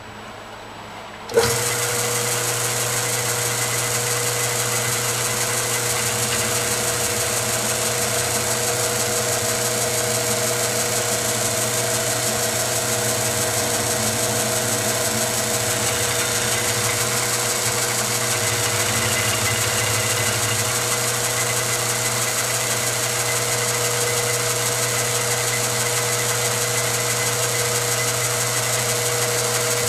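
Milling machine spindle switches on about a second and a half in and then runs steadily, a quarter-inch end mill cutting a slot into a shotgun muzzle brake.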